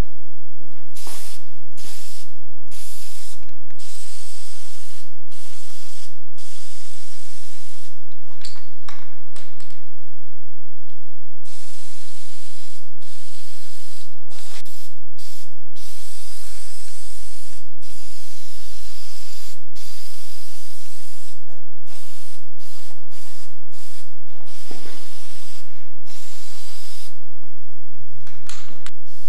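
Aerosol spray-paint can hissing as paint is sprayed onto a metal frame, in many bursts, some short and some held for several seconds, starting and stopping throughout, over a low steady rumble.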